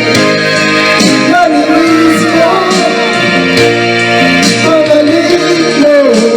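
Karaoke song with a sung vocal playing through a portable Bluetooth karaoke speaker, the HTM-8298, during its sound test.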